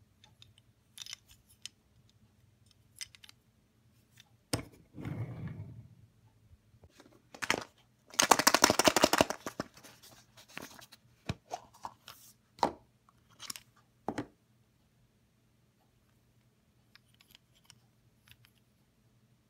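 Hands handling a plastic surprise egg and a wooden toy train car: scattered clicks and knocks, with a dense rattle lasting about two seconds near the middle, the loudest sound, then a few more clicks before it goes quiet.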